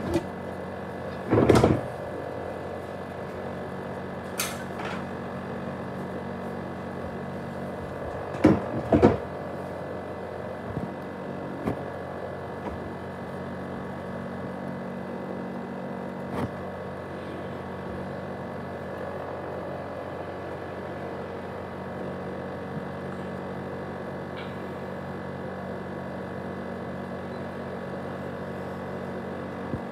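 ASUS X543UA laptop's cooling fan running with a steady whir carrying several humming tones, a jet-engine-like noise from a laptop described as broken down. A few sudden thumps cut in, one about a second and a half in and two close together around nine seconds, with lighter clicks between.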